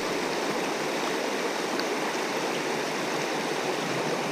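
Steady rushing of a fast creek running over a shallow rocky riffle.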